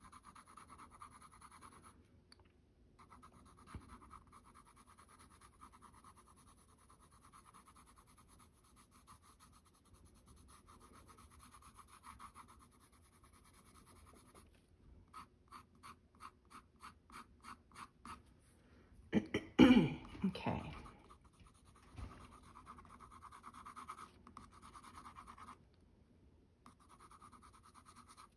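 Faber-Castell Polychromos colored pencil scratching across toned mixed-media paper in short shading strokes, with a quicker run of about three strokes a second a little past the middle. About two-thirds through, a brief, loud throat noise like a cough.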